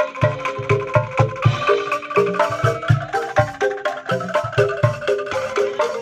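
Background music: a quick melody of short struck notes over a steady beat.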